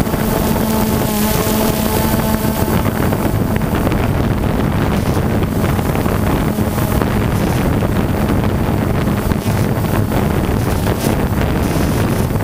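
Multirotor camera drone's motors and propellers running steadily as it flies, heard from the camera mounted on it, a constant-pitched hum mixed with wind rushing over the microphone.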